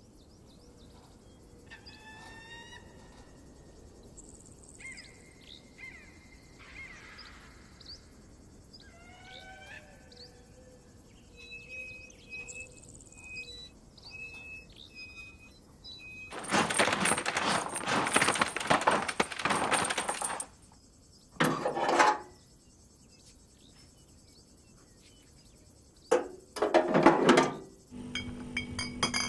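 Quiet outdoor background with scattered bird chirps. Past the middle comes a loud noisy sound lasting about four seconds, then a short burst and two more loud bursts. Near the end the steady electric hum of a refrigerated drinks cooler starts.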